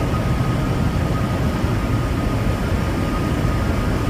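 Steady low drone of a Freightliner semi-truck with a Detroit diesel engine cruising at highway speed, engine and road noise heard from inside the cab.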